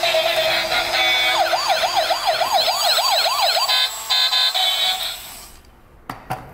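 Toy LED police car's electronic sound unit playing a short tune, then a fast wailing siren of quick rising-and-falling sweeps, then a brief run of beeps; the sound stops about five seconds in, followed by two sharp clicks.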